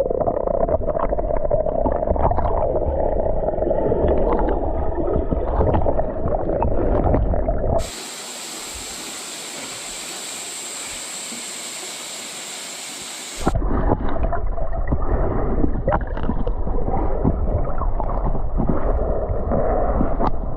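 Underwater bubbling and gurgling as a swimmer dives, with water rushing and churning against the microphone. For about five seconds in the middle this gives way to a quieter, even hiss.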